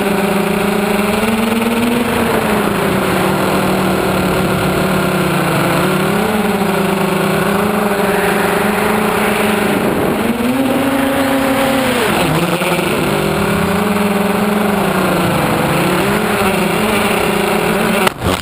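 Electric motors and propellers of an FPV tricopter buzzing loudly close to the onboard camera, the pitch rising and falling as the throttle changes. Near the end a crash into the grass brings a few knocks and the buzz cuts out; the crash broke a propeller.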